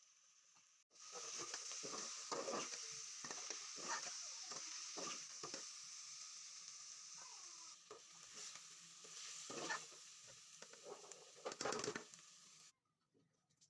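Gwar fali (cluster bean) sabzi sizzling in a frying pan while it is stirred, with irregular scraping strokes of the spoon against the pan. The sizzle starts suddenly about a second in and cuts off suddenly near the end.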